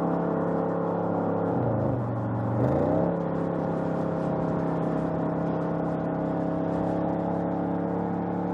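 2020 Audi RS6 Avant's 4.0-litre twin-turbo V8 exhaust running at steady revs under load. The engine note dips about two seconds in and climbs back about a second later, then holds steady.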